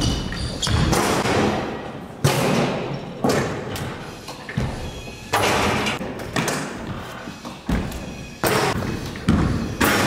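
Basketballs bouncing and thudding in a gym: irregular loud thuds about once a second, each echoing through the hall.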